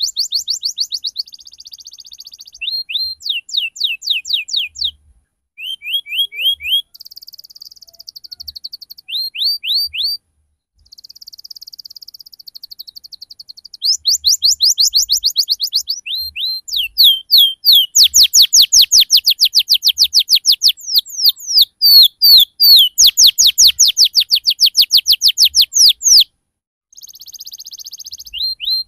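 Domestic canary singing a rolling song: short phrases of fast repeated down-sweeping notes and buzzy trills with brief pauses between them, then a long, loud run of rapid notes from about halfway in that breaks off shortly before the end. It is the kind of rolling ('ngerol') canary song played as a lure to get young canaries to answer and learn it.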